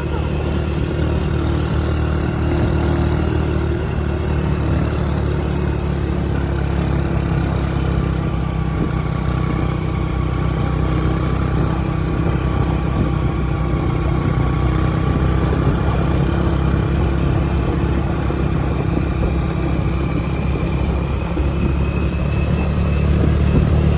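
Small motorcycle engines running at a steady cruising speed, with a constant low rumble of wind and road noise from riding along.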